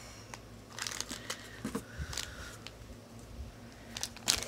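Light crinkling and rustling of a thin plastic blind-bag packet being handled and pulled open, heard as scattered small crackles and clicks, the sharpest near the end.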